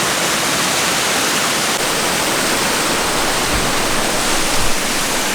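Steady, loud rush of falling water, a continuous even hiss, with a couple of faint low bumps around the middle.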